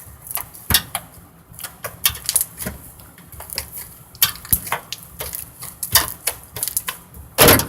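Homemade glue slime being kneaded and squeezed by hand, giving irregular clicks and pops, with one longer, louder squelch near the end.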